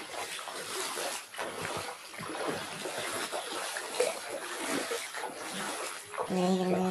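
Floodwater flowing and splashing: an uneven rushing with irregular splashes. A person's voice sounds briefly near the end.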